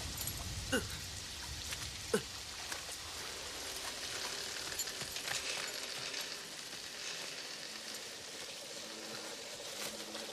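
Heavy rain falling steadily, with two short falling whistle-like glides about one and two seconds in.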